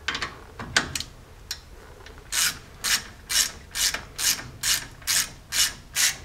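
Hand socket ratchet tightening the slide pins of a new disc brake caliper. A few loose clicks and knocks come first, then from about two seconds in a steady rhythm of about two ratchet strokes a second.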